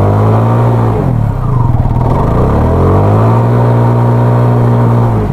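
Motorcycle engine revved hard while the bike is stuck in a riverbed, its rear wheel spinning and churning the water. The revs dip and climb back about two seconds in, then are held high again.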